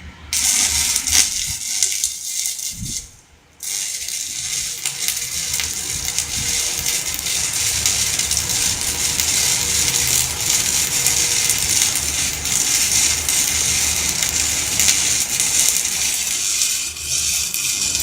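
Stick (arc) welding: the electric arc crackling and hissing steadily. It breaks off for about a second and strikes again about three and a half seconds in, then runs on.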